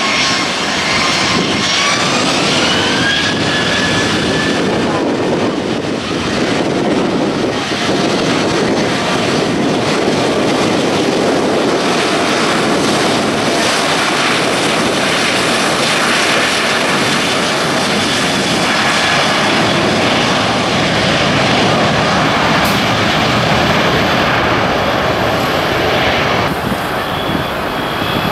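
Jet airliner engines: a whine rising in pitch over the first few seconds, then a loud, steady rush of engine noise.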